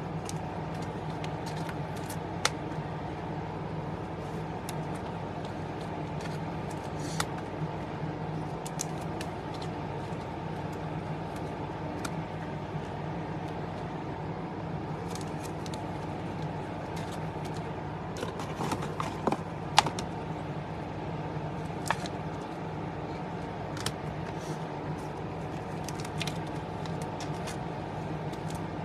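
Trading cards being slid into plastic sleeves: scattered light clicks and ticks, with a small cluster about two-thirds of the way through, over a steady background hum.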